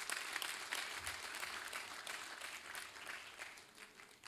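Congregation applauding, fading away near the end.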